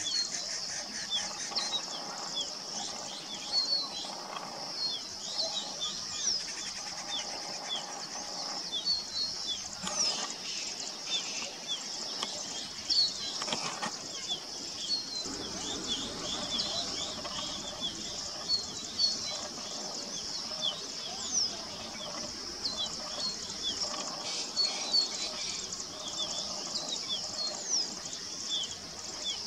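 Male crested bunting singing: short, high chirping notes repeated over and over, over a steady high hiss.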